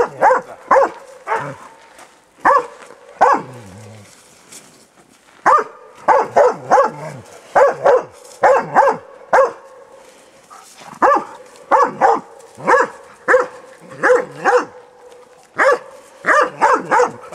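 Jämthund (spitz-type elkhound) barking at a bear in quick volleys of several barks, with pauses of a second or two between volleys. This is baying at the bear, the behaviour a bear test judges.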